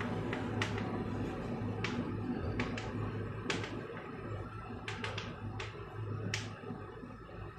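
Chalk tapping and clicking against a blackboard while a word is written by hand: about a dozen sharp, irregularly spaced taps as each letter stroke begins, over a steady low hum.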